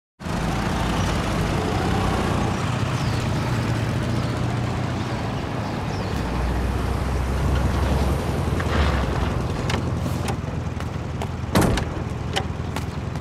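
Engines of a convoy of military motorcycles with sidecars and a staff car running, a steady low rumble. A little over two-thirds of the way through comes one sharp, loud clack, followed by a few lighter clicks.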